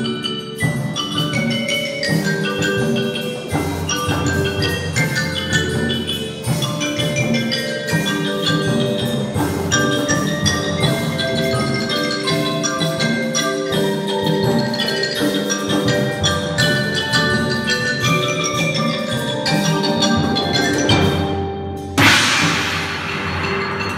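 Percussion ensemble playing: marimba and vibraphone strike quick ringing melodic notes over timpani, with a sudden loud crash about two seconds before the end.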